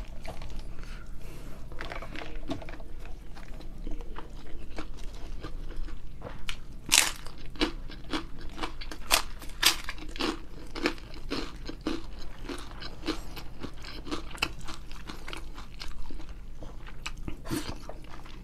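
Close-miked chewing of a hand-eaten mouthful of rice, grilled fish and vegetables: wet mouth clicks and smacks, thickening from about seven seconds in to roughly two a second.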